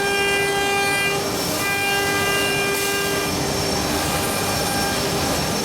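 Four-head CNC wood carving router running: its spindles give a steady high-pitched whine over the constant noise of cutting, and the whine breaks off briefly a couple of times.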